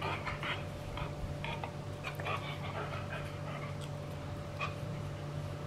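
Labrador Retriever puppy panting in short, irregular breaths while mouthing at a hand, over a steady low hum.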